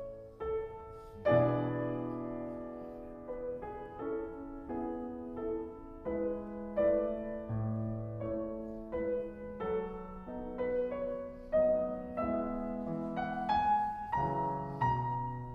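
Background music: a gentle piano piece playing melody and chords, a new note or chord roughly every half second over low bass notes.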